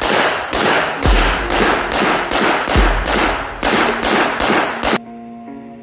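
Rapid rifle fire from an AR-15-style rifle, about four shots a second, with shots striking a steel target and the ground. The shooting stops about five seconds in, and music takes over near the end.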